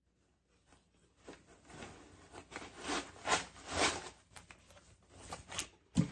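Sheet of packing paper rustling and crinkling as it is pulled out of a wooden box. It starts about a second in, is loudest around three to four seconds, then tapers to a few softer rustles.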